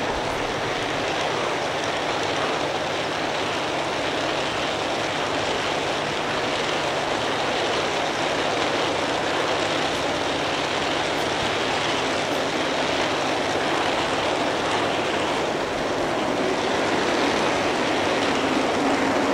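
Long G scale model freight train rolling past close by: the cars' wheels running on the track make a steady rushing noise that grows a little louder near the end.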